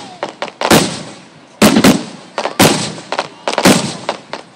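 Aerial firework shells bursting in quick succession: about half a dozen loud bangs, some in close pairs, each trailing off in a long rumbling echo.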